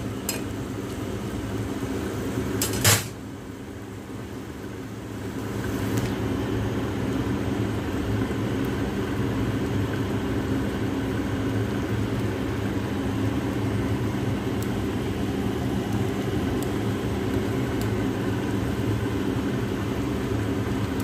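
Steady mechanical hum of kitchen ventilation or the wok burner, with a spatula knocking sharply against the wok once about three seconds in. The hum grows louder about six seconds in and then holds steady.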